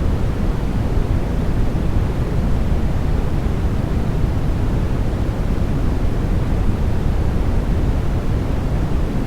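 Steady sleep-aid noise played without a break, deep and rumbly, with most of its weight in the low end and little hiss on top.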